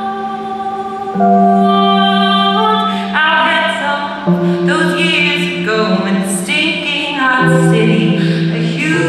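Live female singer with electric keyboard: held chords that change every few seconds, and a woman's singing voice coming in over them about three seconds in.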